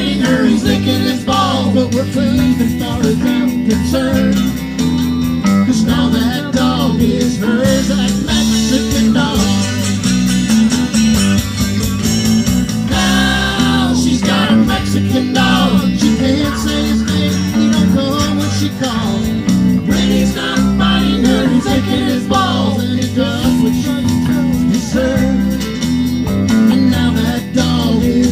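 Live band playing a song on electric guitars and accordion over a bass line with a steady beat.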